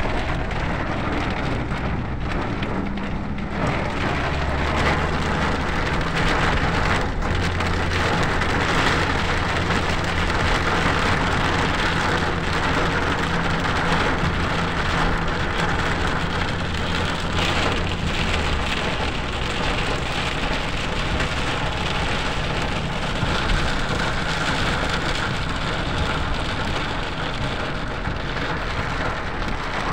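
Rain falling steadily on a moving car's roof and windscreen, heard from inside the cabin, with the hiss of tyres on the wet road and a steady low engine hum beneath it.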